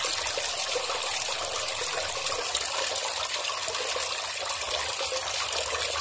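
Water trickling steadily, an even, unbroken splashing.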